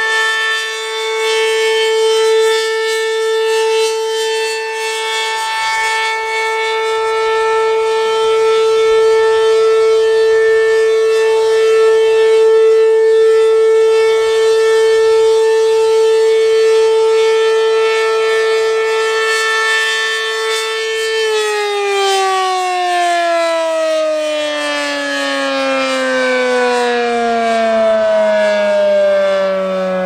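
ACA P-10 single-tone siren sounding a steady alert tone. About two-thirds of the way through, it winds down, its pitch sliding lower and lower as the rotor slows.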